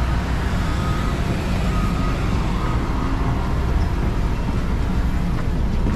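Steady airliner cabin noise in flight: the constant drone of the jet engines and rushing air, heaviest in the low end.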